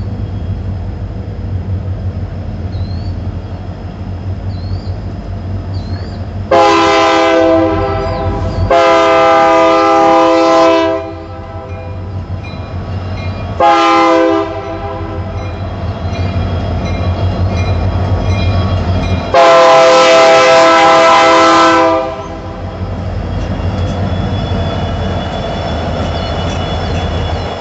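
Union Pacific SD70M diesel locomotive sounding its air horn in the grade-crossing pattern: two long blasts, a short one and a final long one. Beneath the horn runs the steady low rumble of the lead units' diesel engines as the train rolls past.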